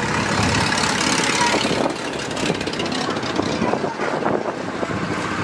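Classic open-top sports cars driving slowly past one after another, their engines running at low revs.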